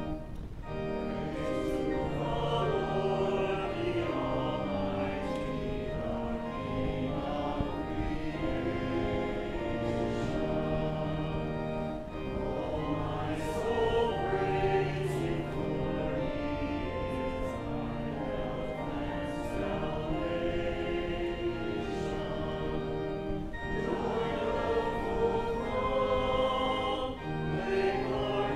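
Church congregation singing a hymn together with pipe-organ-style organ accompaniment, sustained notes moving steadily from one to the next.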